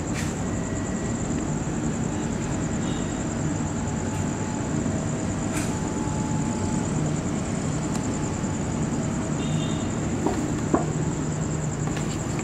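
Steady noise of a diesel-hauled passenger train heard from the doorway of a carriage, with a low hum underneath and a constant high-pitched whine. A couple of small clicks come near the end.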